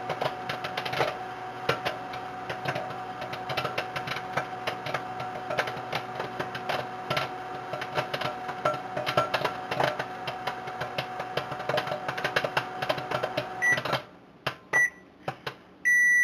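Microwave oven running with a steady hum while a bag of microwave popcorn pops inside, the pops coming thick and irregular. About 14 seconds in the oven shuts off, a few last pops follow, then the oven beeps.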